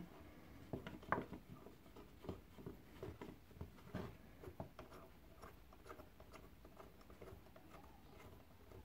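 Faint handling noise: small clicks, ticks and light scrapes of a 6 mm threaded anvil being screwed by hand into a brass block.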